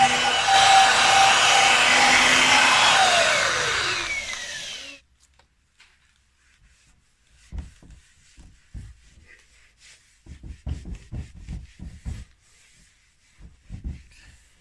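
Electric power tool with a buffing wheel running on a steel exhaust tailpipe, a steady whine over a rough rubbing hiss. It is switched off about four seconds in, its pitch falling as it spins down and stopping about a second later. Faint knocks and bumps follow.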